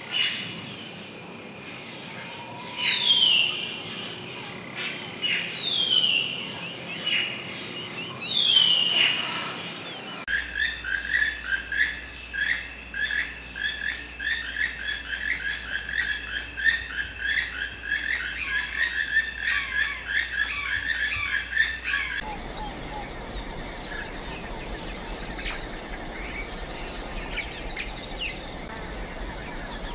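Forest ambience with birdsong: a bird gives a falling whistled call three times, then a fast, steady run of chirps carries on until about two-thirds of the way through, after which only a quieter forest hiss remains.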